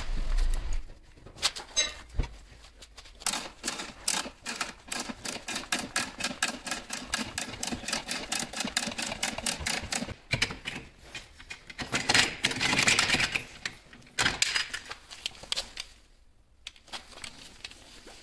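Quick ratchet clicking in long runs from a socket wrench on the wheel's lug nuts and the scissor jack's ratcheting crank handle, with a denser run about two-thirds of the way through. It fades near the end.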